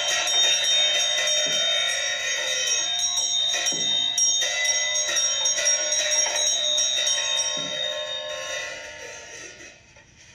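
Tibetan Buddhist handbell (drilbu) ringing continuously, joined by scattered strokes from a hand drum and a pair of small cymbals in ritual music. The playing fades out over the last couple of seconds.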